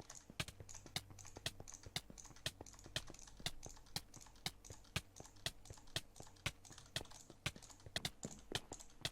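A long run of sharp, dry clicks, roughly three a second in a loose, slightly uneven rhythm.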